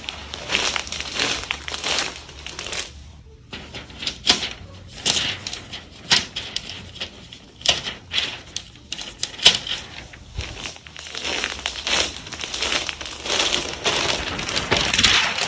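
Wrapping paper crinkling and crackling in irregular bursts, with a brief lull about three seconds in.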